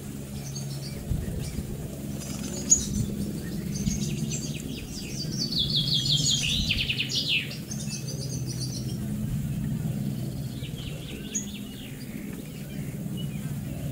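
Small songbirds calling and singing, with a louder trill that falls in pitch about five to seven seconds in and a single sharp click near three seconds, over a steady low hum.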